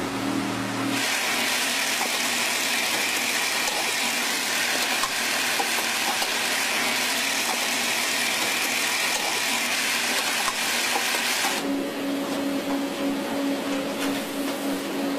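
Banknote processing machinery running: a loud steady whirring rush with a high whine as the notes feed through. About eleven seconds in it changes to a lower steady hum that pulses evenly, from the packing line's conveyor moving banded bundles.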